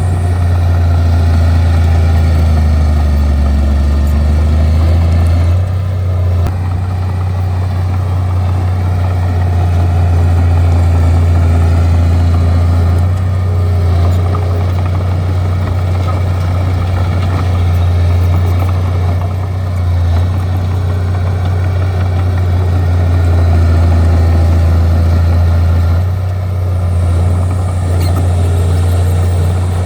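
Bulldozer's diesel engine running under changing load, a steady low drone that swells and eases several times.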